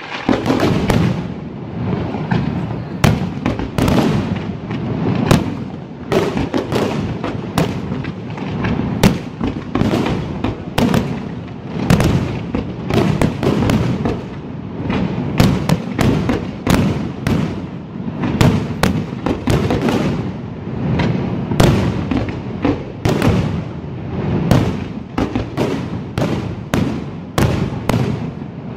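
Aerial firework shells bursting in a dense, continuous barrage: a few sharp bangs and cracks each second over a steady rumble of overlapping explosions.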